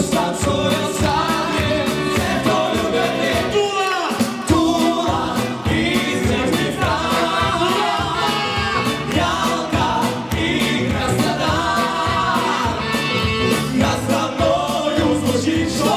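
Male vocal group singing together over a steady beat.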